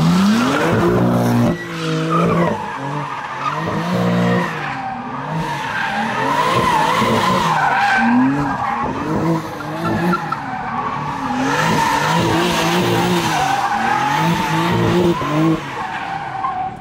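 BMW M4 G82's twin-turbo straight-six revving up and down about once a second as the throttle is worked through a drift, over a continuous wavering tyre squeal.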